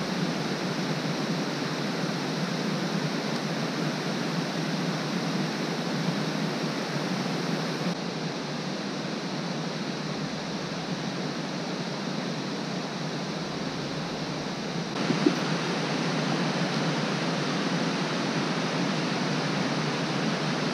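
Rushing water of a cascading creek and waterfall, a steady dense hiss with no pitch; its tone changes abruptly twice, at about 8 and 15 seconds in.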